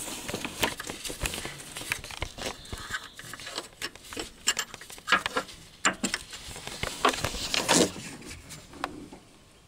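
Irregular metallic clicks, taps and scrapes of a wrench and extension bar working a mounting bolt of a newly fitted air-conditioning compressor, with glove and handling rustle. A longer, louder scrape comes near the end.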